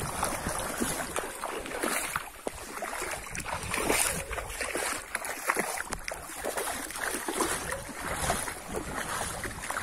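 Wading through shallow floodwater on a grassy path: a steady run of sloshing and splashing steps, from the person walking and the dog wading alongside.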